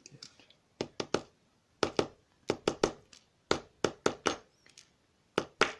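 Small metal lock-cylinder parts being handled and set down on a hard surface: a string of about fifteen sharp clicks and taps, mostly in quick groups of two or three, with short pauses between.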